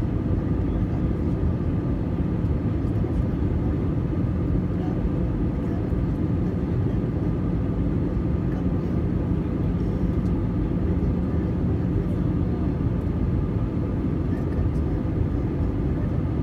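Steady cabin noise of an Airbus A320 airliner in flight, heard from inside the cabin: an even rumble of engines and rushing air, heaviest in the low range, with a faint steady hum running through it.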